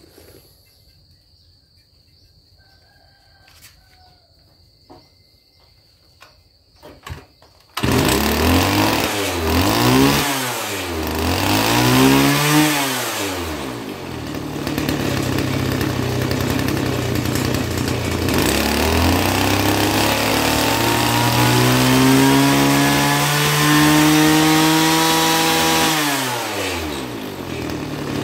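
Small petrol engine of a Japanese trench-digging machine started again after a faint high steady trill and a few clicks; it catches suddenly about eight seconds in, is revved up and down three times, runs steadily, then is revved slowly up, held high and let back down near the end.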